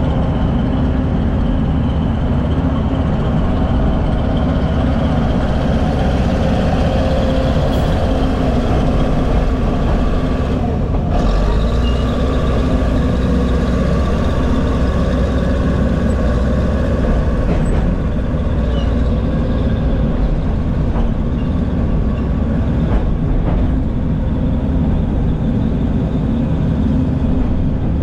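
Heavy diesel earthmoving machinery running steadily.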